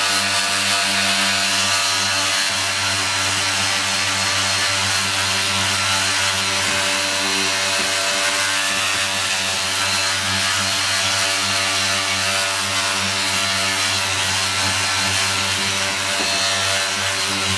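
Small handheld power sander running steadily with a constant hum and sanding hiss as its pad works across a primed fibreglass motorcycle tail section, levelling CA-glue-filled pinholes.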